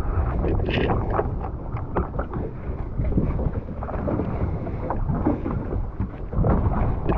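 Sportfishing boat under way, its engine rumble mixed with choppy, uneven water and hull noise, and wind buffeting the microphone.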